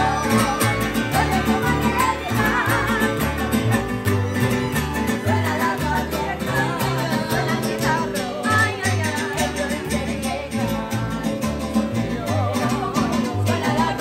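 Live mariachi performance by women singers: voices singing with strummed acoustic guitar and a plucked bass line.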